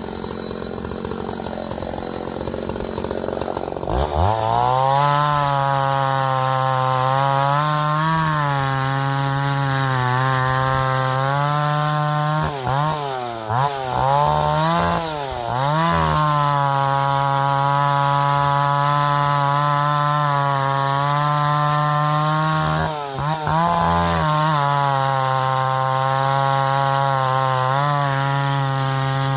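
Vintage Husqvarna L65 two-stroke chainsaw running hard while bucking ash. The first few seconds are rougher and noisier; from about four seconds it holds a steady high pitch that dips and recovers several times, as the chain loads up in the wood.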